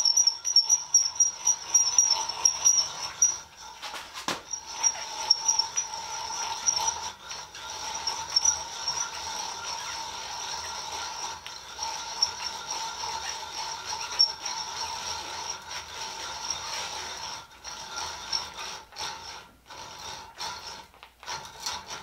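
A Miller Falls No. 120 breast drill being cranked by hand in its high-speed gear. The bit is cutting into steel, and the gears whir with a fine, rapid clicking. There is one sharp click about four seconds in, and the sound turns uneven, with short pauses, in the last few seconds.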